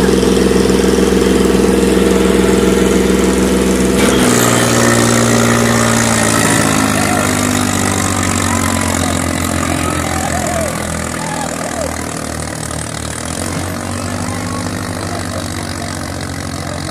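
Diesel tractor engine running at high revs under heavy load, its front end lifting. About four seconds in, the note drops lower and starts to pulse unevenly.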